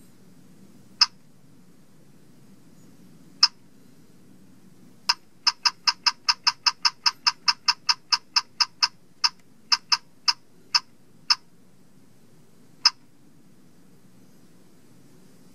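LEGO Mindstorms NXT 2.0 brick beeping at each button press: short identical high beeps, two single ones at first, then a fast even run of about five a second for some four seconds as the arrow keys step through the letters, then a few slower beeps and a last lone one.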